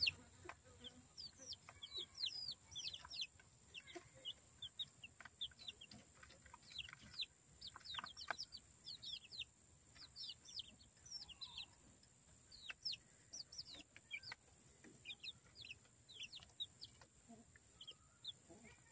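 Half-grown chicks peeping: many short, high-pitched chirps, faint and irregular, from several birds at once.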